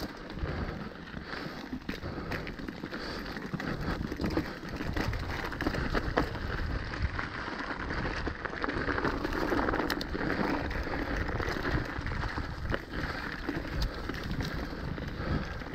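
Mountain bike riding fast down a rocky, gravelly trail: tyres crunching and skittering over loose stones, with many sharp clicks and rattles from the bike over the bumps.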